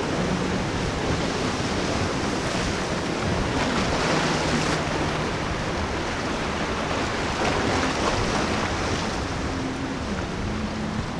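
Surf and wind noise at an ocean inlet, with the low drone of boat engines underneath that shifts up and down in pitch several times as the boats throttle.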